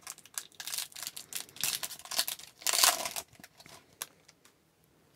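Trading-card pack wrapper and hockey cards crinkling and rustling as they are handled, in several bursts over the first three seconds. A few light ticks follow, then it goes quiet.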